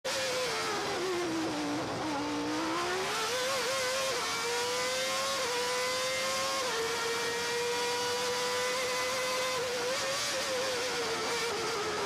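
Honda-engined Formula One car at high revs heard from the cockpit; the engine note drops about two seconds in, climbs again, then holds nearly level with small steps in pitch.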